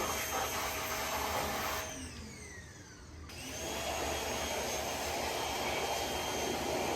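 An electric motor-driven fan tool running with a steady rushing whine. About two seconds in it is switched off and winds down in falling tones, then just over three seconds in it is switched on again, spins up and runs steadily.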